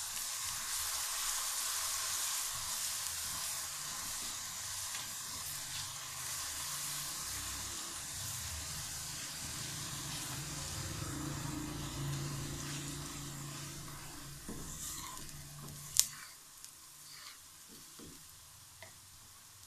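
Dark-browned onions and a little added water sizzling in oil in a karahi as a spatula stirs them. The sizzle dies down after about fourteen seconds, and a single sharp knock comes about sixteen seconds in, followed by a few light ticks.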